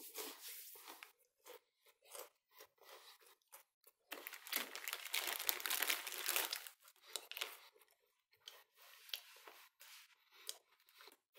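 A clear plastic wrapper crinkling and rustling under a hand, with many fine crackles. The loudest stretch runs from about four to seven seconds in, and softer crackles come before and after it.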